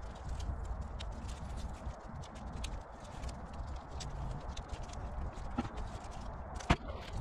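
Light taps and clicks of gloved hands pressing foam gasket tape around the speaker cutout of an MDF subwoofer box, over a steady low rumble, with one sharper click near the end.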